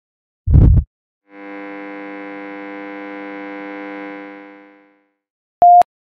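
Synthesized logo intro sting: a short, loud, deep hit, then a held synthesizer chord that fades out, and near the end a brief, loud, single-pitch beep.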